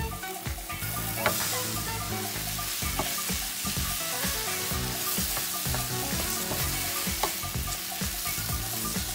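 Mashed potato and fried onion-tomato masala sizzling in hot oil in a frying pan while being stirred and scraped with a wooden spatula. The sizzle grows louder about a second in, with one sharp clack there and lighter scrapes and taps after.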